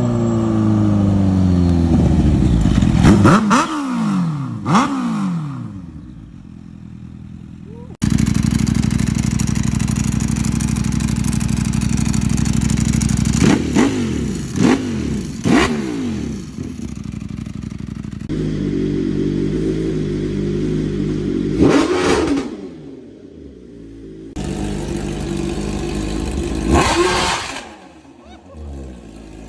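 Several superbike engines in turn, each idling and then revved in quick throttle blips that rise sharply in pitch and fall back, through loud exhausts. The sound changes abruptly a few times as one bike gives way to the next.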